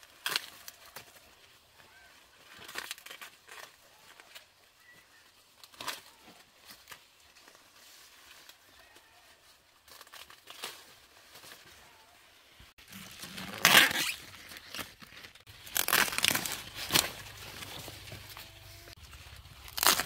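Dry corn leaves and husks rustling and crackling as they are handled, with scattered sharp snaps and tearing sounds. These come sparsely at first and grow busier and louder after about two-thirds of the way in, over a low steady hum.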